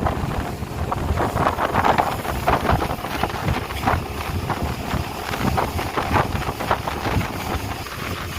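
Speedboat under way on a river: engine and water noise, with wind buffeting the microphone in uneven gusts.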